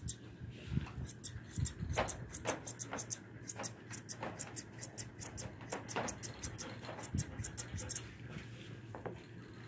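Grooming shears snipping through a standard poodle's leg coat in quick runs of crisp snips, several a second, stopping near the end.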